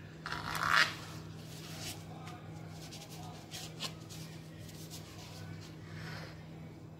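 A kitchen knife scraping and cutting through a chocolate-glazed cake on a plate. It opens with a loud rising scrape about half a second in, followed by a few faint clicks and scrapes and a softer scrape near the end.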